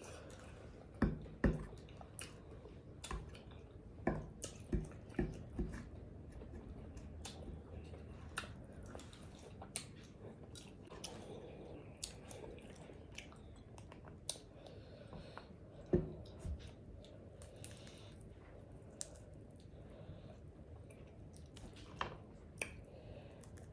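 Close-up mouth sounds of someone eating: chewing and wet smacking, with scattered sharp clicks, a run of them in the first few seconds and a louder one about sixteen seconds in.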